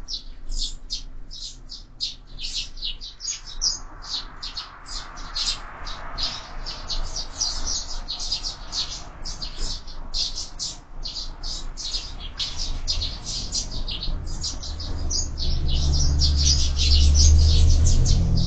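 Sparrows chirping in a quick, unbroken run of short high notes. A low rumble swells in the last few seconds and is the loudest sound there.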